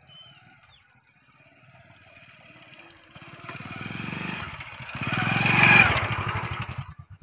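Small motorcycle engine running as the bike rides up and passes close by: it grows louder as it approaches, is loudest about six seconds in, then falls away sharply near the end.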